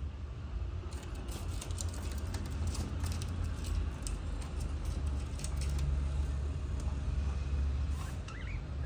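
Sun conure claws clicking and tapping on a wire cage grid: a quick patter of sharp ticks, thickest in the first few seconds, over a steady low rumble. A short, faint chirp near the end.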